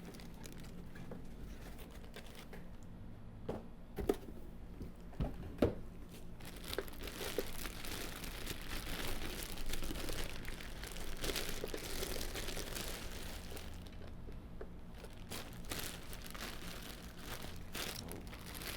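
Plastic packaging crinkling and rustling as a boxed flash unit is unwrapped and handled. A few sharp knocks come in the first six seconds, then a longer stretch of steady crinkling in the middle, then scattered clicks.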